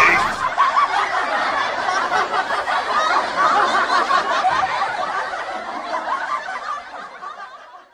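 Canned audience laughter, many people laughing together, fading out over the last couple of seconds.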